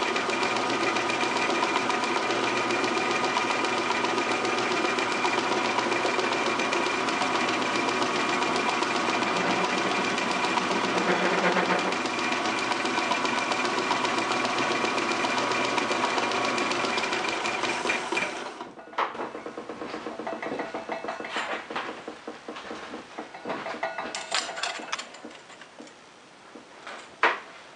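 Metal lathe running while turning down a steel bar for a drawbar: a steady mechanical drone with several steady tones. It stops suddenly about two-thirds of the way through, followed by a few light clicks and knocks.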